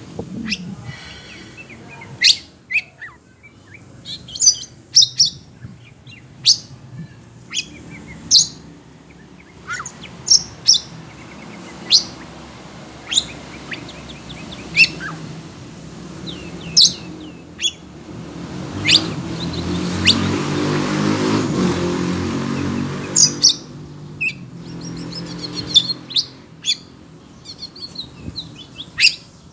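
Oriental magpie-robin (kacer) giving loud, sharp chirps and short whistled calls in quick, irregular bursts throughout, typical of a bird worked up by hearing other birds. About two-thirds of the way through, a rumbling, rushing noise swells for a few seconds and fades.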